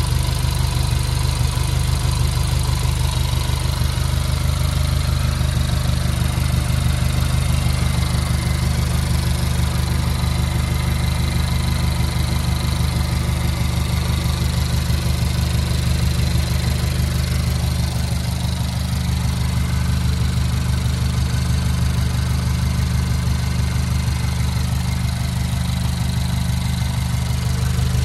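Honda Accord 2.0T's turbocharged four-cylinder engine idling steadily.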